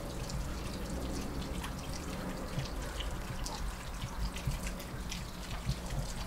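Water trickling and dripping, with many small irregular drips over a steady low rumble.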